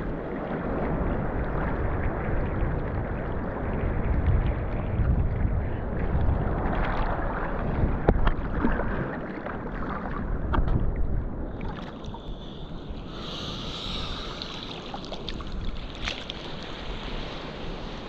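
Wind buffeting the microphone over sea water sloshing and lapping around a surfboard, with scattered small splashes and knocks. It turns quieter and thinner about two thirds of the way in.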